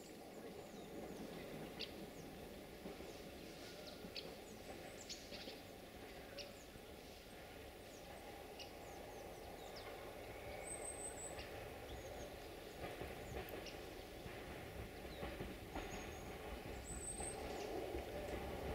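Domestic turkeys calling softly, with short high bird chirps over a low steady outdoor rumble that grows louder near the end.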